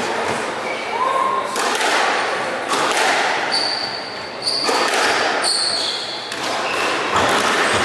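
Squash rally: the ball smacking off rackets and walls about once a second, with shoes squeaking on the wooden court floor in the middle.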